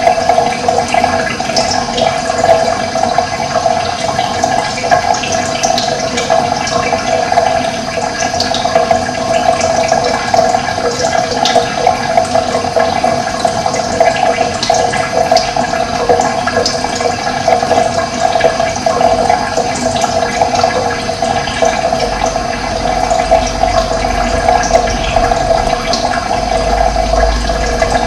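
Steady rush of running water, with short high bird chirps scattered throughout.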